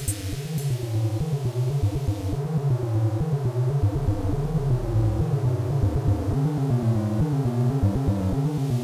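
Electronic music from hardware synthesizers: a fast sequence of stepping synth notes over a steady bass line. The drum beat drops out in the first second, leaving only the synths.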